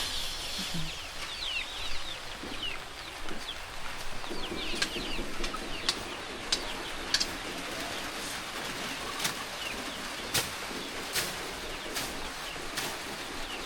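Birds chirping with many short, quick calls. After a few seconds, a series of sharp knocks joins in, coming at a little under one a second.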